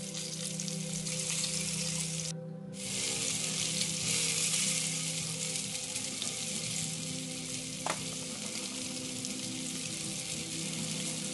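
Yellowfin tuna steaks sizzling in oil and butter in a smoking-hot cast-iron skillet, a steady frying hiss. The sizzle drops out for a moment about two seconds in, and there is a single sharp click later on.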